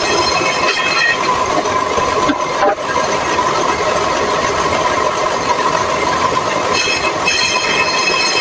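Homemade table saw running steadily, its blade whining as boards are pushed through. The whine is strongest at the start and again from about seven seconds in.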